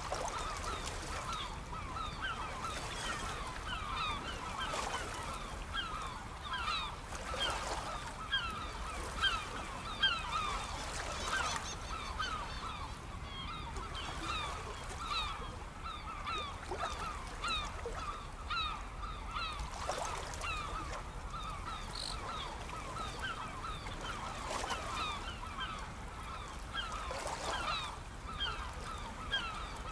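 A large flock of birds calling without pause, many short overlapping calls, over the steady wash of sea waves.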